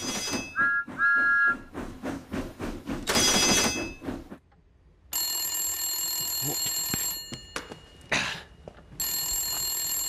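A short jingle with whistle toots and a loud hiss, then a black rotary-dial telephone's bell ringing twice, each ring about two seconds long.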